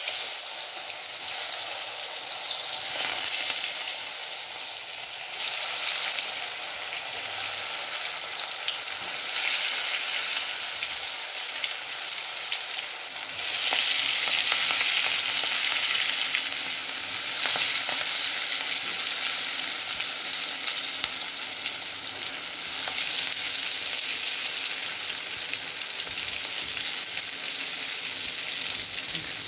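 Masala-coated potato pieces deep-frying in hot oil in a kadai: a steady sizzle of bubbling oil that swells louder a few times.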